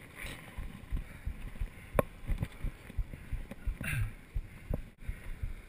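Running footfalls on a trail, a dull thud about three times a second, with a few sharper clicks among them.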